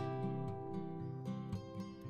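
Background music: a plucked-string instrument playing a melody, one note after another.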